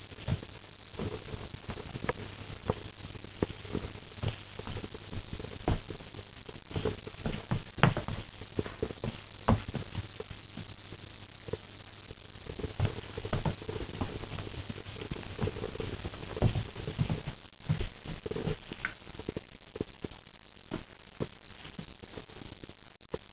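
Irregular taps, knocks and scuffling as a Cairn terrier and a cat play, over a steady low hum.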